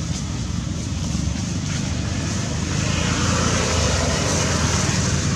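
Steady outdoor background noise: a low rumble with a hiss above it, growing a little louder about halfway through.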